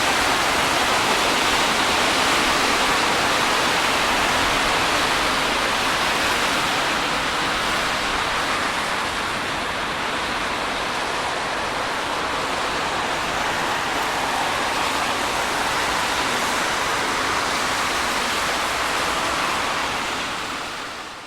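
Steady hiss of rain and tyre spray on a wet road, with no distinct single pass, swelling and easing slightly and fading out near the end.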